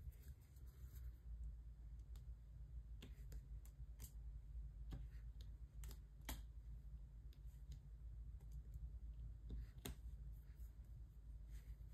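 Faint, irregular clicks and taps of a diamond-painting drill pen setting small resin drills onto the canvas, over a low steady hum.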